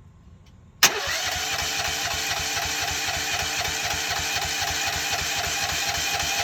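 Briggs & Stratton engine of a mini excavator being cranked over by its starter without firing, a steady rapid pulsing that starts suddenly about a second in. The cranking is for a compression test that only reaches about 75 against a spec of 85 to 120, a sign of an internal engine problem.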